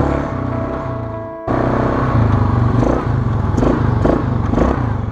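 Quad bike (ATV) engine running as it rides a rough dirt trail, its drone easing off over the first second and a half, then cutting back in abruptly at full level. A few knocks and rattles of the machine over bumps come later.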